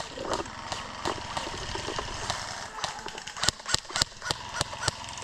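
Rustling and scuffing, then a run of sharp, irregular clicks and snaps from about three and a half seconds in.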